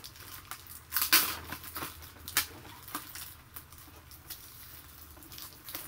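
Irregular small clicks and crackles of cardboard and plastic doll packaging being handled, with a couple of louder crackles about a second and two and a half seconds in.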